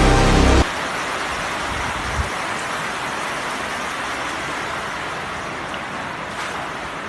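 Heavy rain falling steadily, an even hiss, with a small low bump about two seconds in.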